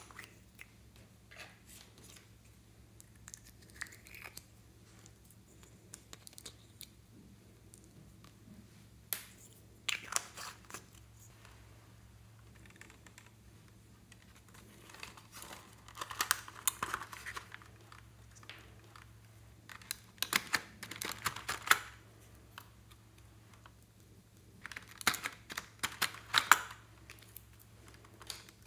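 Hard plastic toy makeup cases being handled, opened and clicked: scattered clicks and taps, with several spells of crackling and crinkling, the busiest in the second half.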